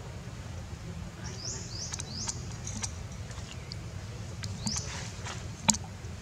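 Several short, high chirps, each sweeping upward, over a steady low rumble, with a few sharp clicks; the loudest click comes near the end.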